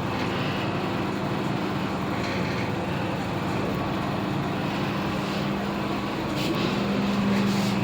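Old Fujitec passenger lift car travelling down its shaft: a steady running hum with a rushing noise, the hum growing a little louder near the end.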